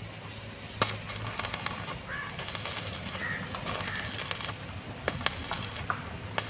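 Arc welder tack-welding a steel C-channel frame: the arc crackles and sputters in several short bursts of about a second each, with a couple of sharp snaps. Crows caw faintly in the background.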